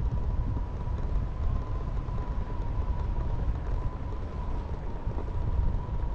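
Wind buffeting the camera microphone during a parachute descent: a steady low rumble, with a thin steady tone held throughout.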